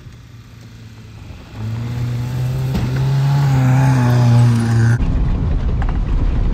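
A carburetted Fiat Uno's four-cylinder engine revving high and steady as the car drives hard through deep sand, its pitch climbing a little. The engine comes in loud about a second and a half in, and from about five seconds in it gives way to a heavy low rumble.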